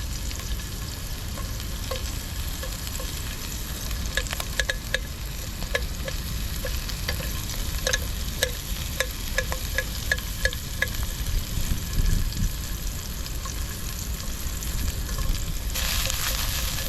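Garlic and chopped jalapeños frying in hot olive oil in a pan, sizzling steadily while being stirred, with a run of small sharp pops and clicks through the middle. The sizzle turns brighter and louder near the end.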